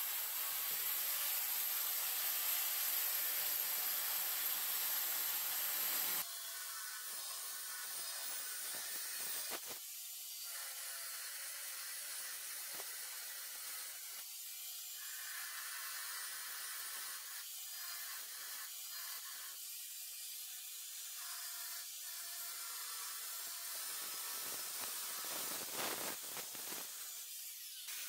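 Milwaukee angle grinder with a diamond blade cutting into a porcelain tile, with brief pauses between passes, over a steady hiss.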